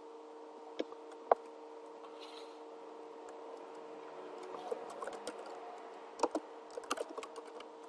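Typing on a computer keyboard: two single clicks about a second in, then a quick run of keystrokes in the second half as a short phrase is typed.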